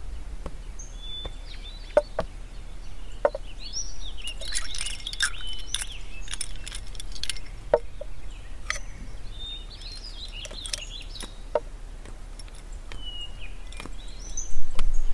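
Small birds chirping and twittering on and off, with a few short, light clicks or knocks scattered in between.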